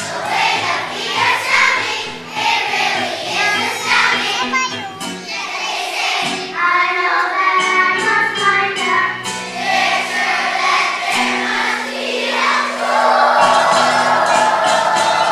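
A choir of first-grade children sings along with an instrumental accompaniment.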